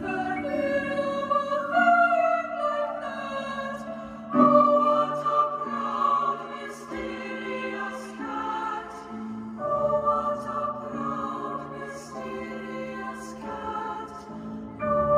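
Slow music with choir-like singing in long held notes, moving to a new note or chord every second or so.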